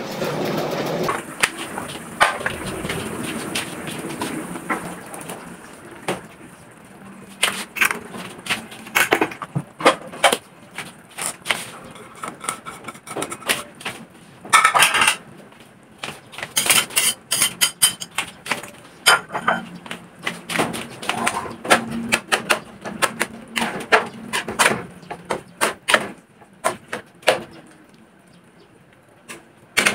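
Cooking in a home kitchen: many irregular sharp clicks and knocks of a knife on a wooden cutting board and a metal spatula against a wok of diced vegetables in sauce.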